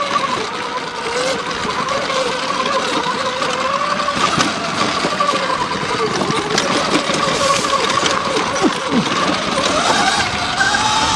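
Sur-Ron X electric dirt bike riding over rough dirt: the motor's whine rises and falls with the throttle and climbs near the end. Underneath is a steady rushing noise with scattered knocks and rattles.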